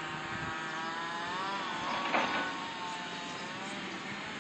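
An engine running steadily, its pitch dipping and then rising again about halfway through, with a brief rush of noise just after.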